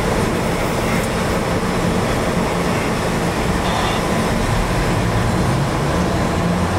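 Steady engine and running noise of a subway snow-clearing vehicle travelling along the track, heard inside its cab.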